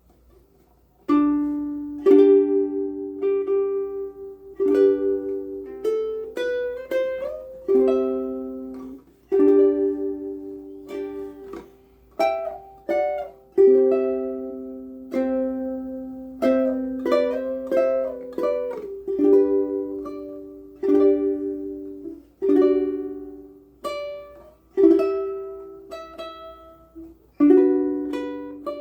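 Ko'olau C200 ukulele with aNueNue Green Planet strings played solo: strummed chords and picked melody notes, each ringing and fading, starting about a second in.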